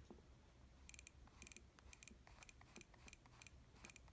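Faint, quick electronic clicks from a Creative Zen Micro MP3 player's touch-strip clicker, ticking irregularly about three times a second as the volume is stepped.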